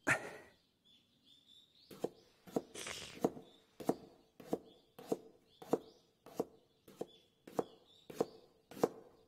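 Slow, steady knife chopping on a cutting board, one stroke about every 0.6 s, starting about two seconds in, with faint high bird chirps between the strokes. A single sharp knock at the very start.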